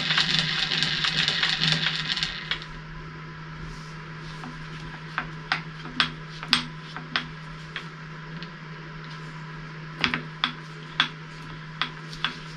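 Milling machine table being traversed to run a workpiece under a dial test indicator. A loud rushing noise lasts about two seconds, then scattered light metallic clicks and ticks come over a steady low hum.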